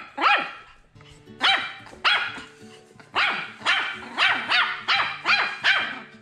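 Pomeranian puppy barking repeatedly: about ten short, high-pitched yaps, coming faster in the second half, over background music.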